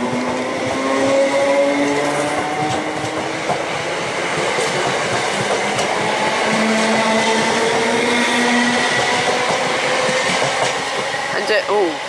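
Electric multiple unit (Class 320 leading, Class 318 on the rear) running along the platform: a loud, steady rumble of wheels on rails under several whining tones that drift slowly lower.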